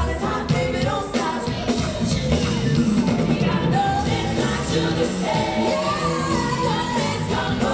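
Live pop song with a woman singing lead over a full band, heard through an arena's sound system.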